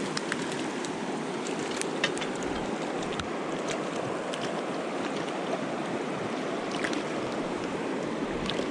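Steady rush of a mountain river's flowing water, with a few faint clicks.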